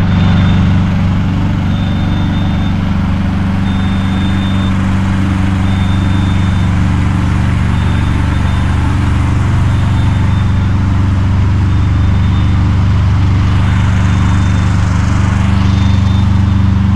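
A large engine, most likely a truck's, running steadily at idle with an even low hum. A faint high beep repeats about every second or two over it.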